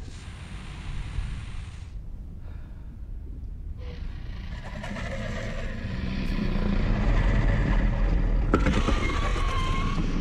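Deep, low rumbling of a huge dragon's breathing in a cave, swelling louder about six seconds in, with a sharp click near the end.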